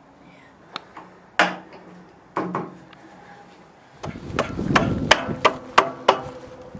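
A few scattered clicks and clacks, then a quick series of about six sharp wooden knocks, roughly three a second, over a low steady background hiss.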